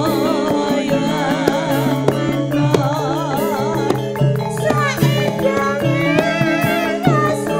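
Campursari ensemble music: held, steady notes over a low bass line, with a high melody that wavers in pitch and climbs higher about five seconds in.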